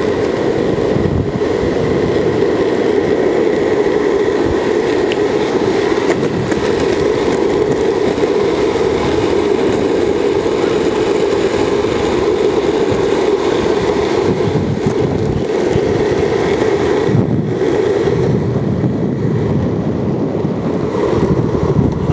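Steady rolling rumble of longboard wheels on asphalt, mixed with wind rushing over the microphone.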